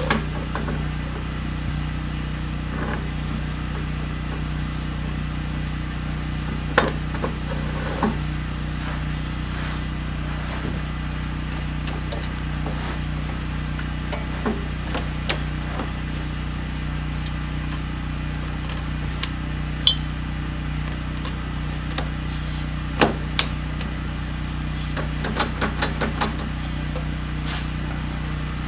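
An engine idling steadily, with scattered sharp knocks and clicks over it, including a quick run of them near the end.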